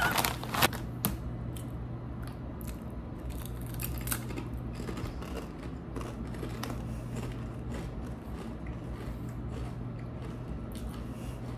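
Scattered small crisp clicks and crackles of someone eating at a table, over a steady low hum.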